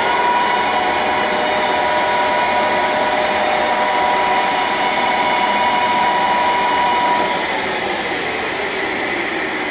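1993 Summit 20-4X80 gap bed engine lathe running under power, with a steady gear whine from the headstock over the running noise. About seven seconds in the whine fades, leaving a lower, quieter machine hum.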